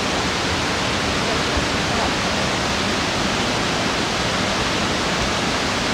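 Steady rushing hiss of a waterfall and its stream.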